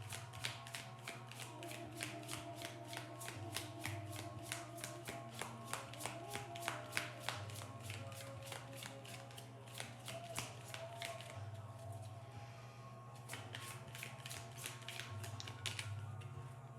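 A deck of cards being shuffled by hand: a quick run of soft card slaps, several a second, that breaks off briefly and starts again near the end. Soft background music runs underneath.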